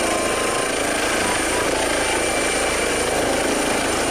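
Helicopter sound effect: steady rotor and engine noise at an even, unchanging level.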